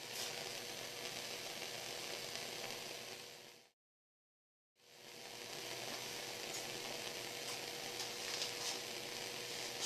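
Bunsen burner gas flame burning with a steady hiss and a faint steady hum. The sound cuts out completely for about a second in the middle, and a few faint crackles come in the second half.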